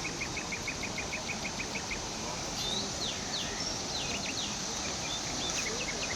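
Tropical outdoor ambience: insects keep up a steady high drone while birds chirp. In the first two seconds a bird gives a quick run of about a dozen short, evenly spaced notes, and scattered higher chirps follow.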